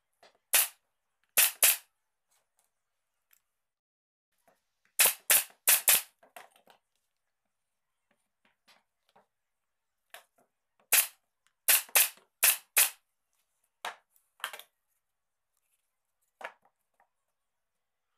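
Sharp, loud knocks in irregular clusters of one to five, about fifteen in all, with silence between: work on a small wooden table base.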